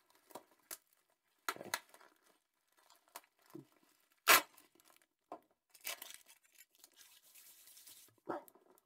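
Packing tape being pulled and torn off a bubble-wrapped box in a series of short rips, with crinkling of the plastic wrap between them; the sharpest rip comes about four seconds in.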